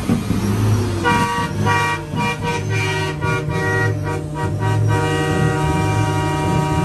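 Semi truck's air horn blown about a second in: a few short toots, then held in one long steady blast from about five seconds in. A low bass throb pulses underneath about once a second.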